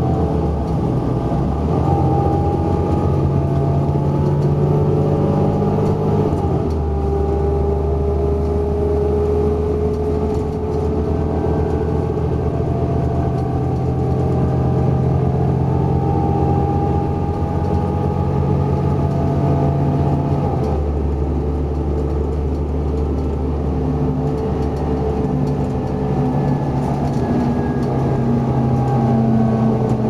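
A New Flyer XD40 transit bus heard from inside the cabin at highway speed: its Cummins ISL9 inline-six diesel and Allison WB-400R automatic transmission running steadily under road and tyre noise. The low engine note changes abruptly about six seconds in and again around twenty seconds in.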